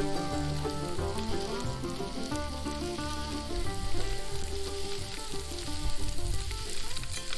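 Food sizzling and frying over a campfire, with background music playing over it.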